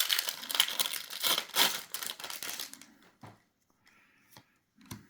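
Foil wrapper of a Magic: The Gathering booster pack being torn open and crinkled, a dense crackling for about three seconds, then a few quieter rustles and clicks of handling.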